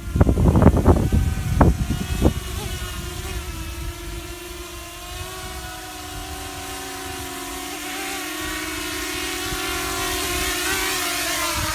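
Walkera 250 Pro quadcopter's motors and propellers humming steadily with an even whine that edges up slightly. Wind buffets the microphone with loud thumps in the first couple of seconds. The motors cut off right at the end, their pitch dropping away.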